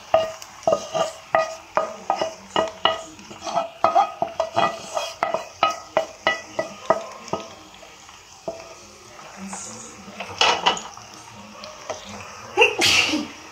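Wooden spatula knocking and scraping against a non-stick pan, a quick run of sharp taps as white sauce is scraped out onto pasta, followed near the end by a few longer scrapes of stirring in the kadai.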